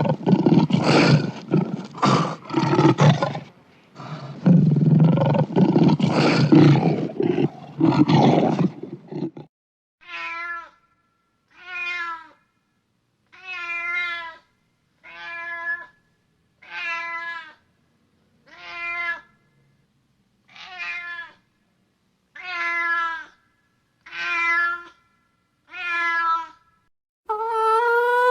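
A big cat roars and growls in loud, rough bouts for about the first nine seconds. Then a domestic cat meows about ten times, one short meow every second and a half to two seconds.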